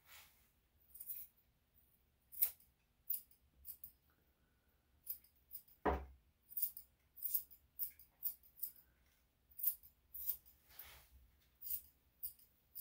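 Grooming scissors snipping the coat around a Yorkshire Terrier's tail in short, irregular cuts, with one duller knock about six seconds in.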